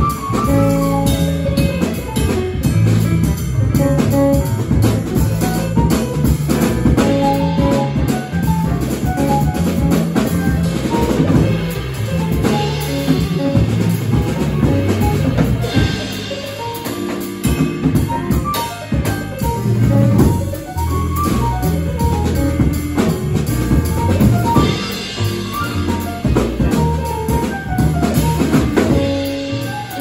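Jazz quartet playing live: drum kit, saxophone, piano and upright bass together.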